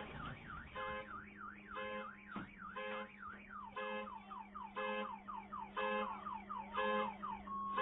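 Car alarm going off just after a house explosion. It repeats a beep about once a second over fast up-and-down whooping sweeps, which turn into falling sweeps about halfway through. The dying rumble of the blast fades out in the first half-second.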